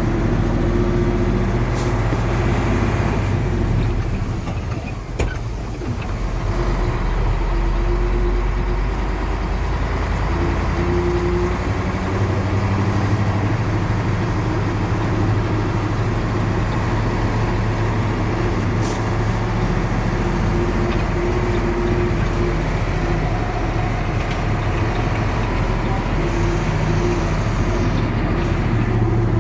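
Excavator's diesel engine running steadily, its pitch and hydraulic load swelling and easing now and then, with a few faint clicks.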